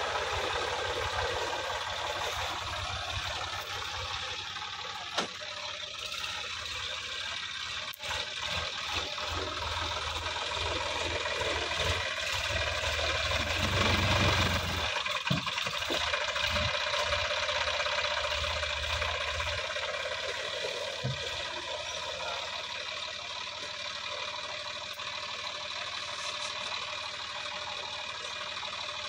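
Sonalika DI 50 RX tractor's diesel engine running hard under load as it drives through deep water and mud. Its low rumble builds to its loudest about fourteen seconds in, then drops off sharply and runs on more quietly.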